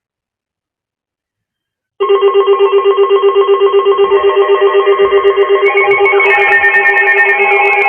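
Electronic synthesizer tone with a fast ringing trill, about eight pulses a second, cutting in suddenly about two seconds in. Near the end more tones join and it becomes fuller synth music.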